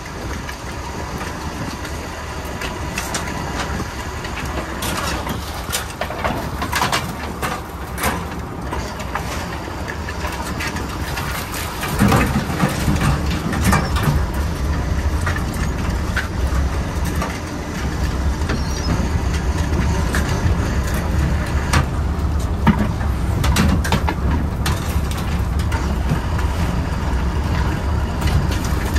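Workboat engine running steadily under way, its low drone growing louder about twelve seconds in, with scattered knocks and rattles of wire crab pots being handled.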